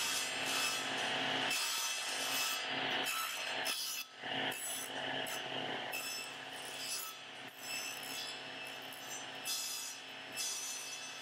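Table saw cutting a narrow wooden strip fed along the fence: a steady, noisy cutting sound that dips briefly a few times as the strip is pushed through.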